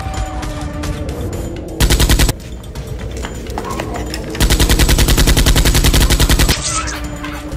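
Rapid automatic gunfire sound effect in two bursts: a short one about two seconds in and a longer one of about two seconds from just before halfway.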